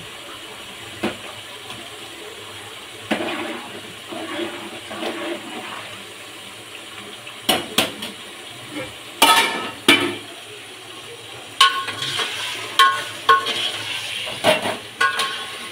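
Metal utensils knocking and clinking against cooking pots, with a cluster of sharp knocks in the second half, several ringing on briefly, over a steady hiss of frying.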